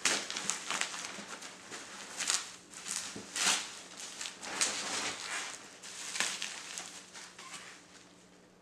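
Plastic bubble wrap rustling and crinkling as it is handled and pulled out of a cardboard box, in irregular crackles that die down near the end.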